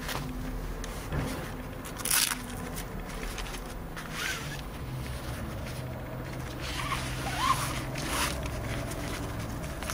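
Padded neoprene fishing-rod protectors being pulled and worked over the rod sections, making rubbing and scraping handling noise. There are several short rasps, and the loudest comes about two seconds in.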